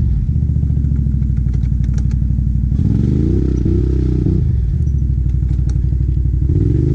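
Can-Am Outlander ATV engine running under throttle on a muddy climb, its pitch falling and rising as the rider works the throttle, with a few short clacks from the rattling machine.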